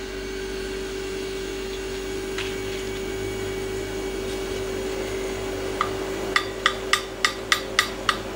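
A valve coated in marking blue tapped repeatedly against its freshly cut seat in a Toyota 3S-GE cylinder head to mark the seat contact area: about eight light metallic clicks, roughly three a second, in the last couple of seconds. A steady hum runs underneath.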